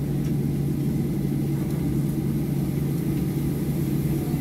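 Steady low drone inside the cabin of a Boeing 737-700 on the ground, its CFM56-7B turbofan engines idling, with a steady low hum running through it.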